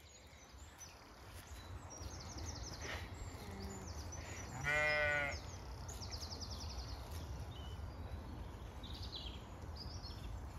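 A Zwartbles sheep bleats once, loudly, for about half a second near the middle. Songbirds trill at intervals over a steady low rumble.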